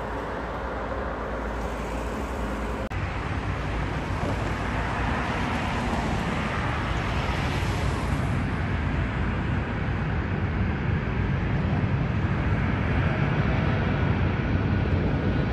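Jet airliner engines on approach: a steady rushing roar that changes abruptly about three seconds in, then grows gradually louder as a Saudi Arabian Airlines Boeing 777 comes nearer on final approach.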